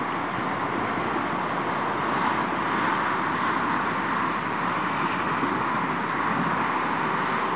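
Steady rushing background noise with no distinct sounds standing out of it.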